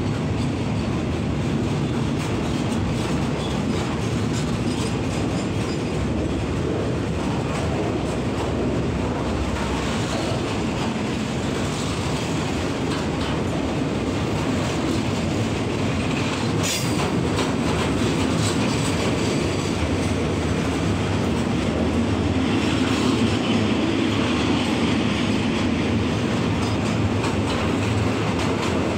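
Container freight train wagons rolling past at close range at a steady speed: a continuous rumble of steel wheels on rail with rhythmic clacking over rail joints. A single sharp metallic click comes just past halfway.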